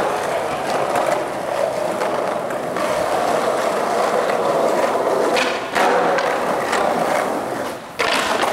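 Skateboard wheels rolling on smooth concrete in a steady rumble, with a few short clacks of the board. The sound breaks off abruptly twice and starts again.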